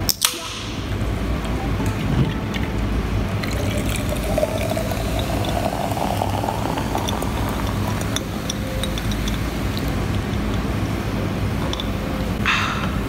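Canned sparkling water (strawberry bubly) poured into a glass mason jar over ice, fizzing, the pitch of the pour rising as the jar fills. A short "ahh" after a sip near the end.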